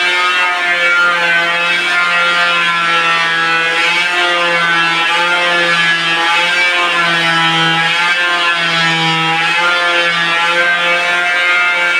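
A small electric motor running with a steady buzzing whine, its pitch sagging slightly a couple of times as if under load.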